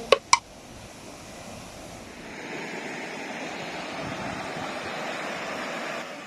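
Steady rushing of running water, growing louder about two seconds in, after two sharp clicks at the very start.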